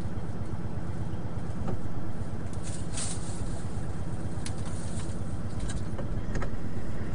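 Truck engine idling steadily as a low, even rumble, with a few light clicks about a third and two-thirds of the way through.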